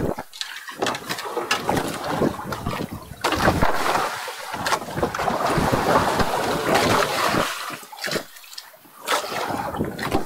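Gusty wind buffeting the microphone on a small fishing boat at sea, coming in irregular surges with a few brief lulls.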